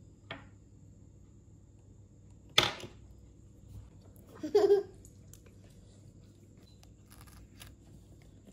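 Plastic squeeze bottle of red sauce sputtering as sauce is squirted onto breaded corndogs: a faint click, then two loud, brief squirts about two seconds apart.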